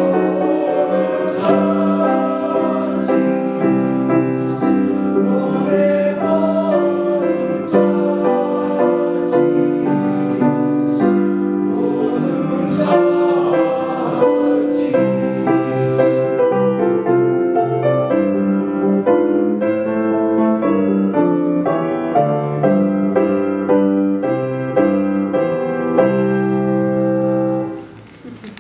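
High-school boys' vocal ensemble singing together in chords, with sharp 's' sounds audible in the first half. A final chord is held, then released near the end.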